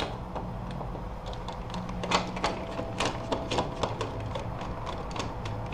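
Light clicks and taps of a sliding patio door handle, its back plate and screws being handled and fitted, with a few sharp ticks between about two and four seconds in.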